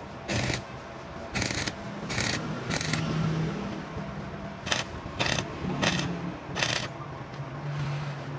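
Short rasping strokes of a tool working metal, about nine of them in uneven groups, each lasting a few tenths of a second.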